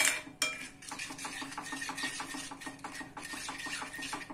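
A spoon stirring curd into a pan of hot tempered oil, scraping the pan in quick, even strokes about five a second, after a couple of knocks at the start. Steady stirring like this keeps the curd from splitting in the hot oil.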